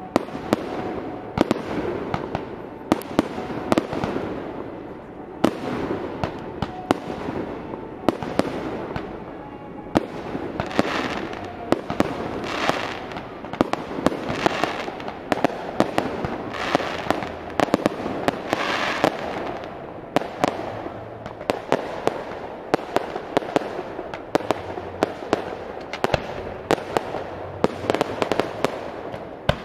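Fireworks display: aerial shells bursting in a rapid, irregular string of sharp bangs, several a second, over a continuous rushing noise that swells and fades between them.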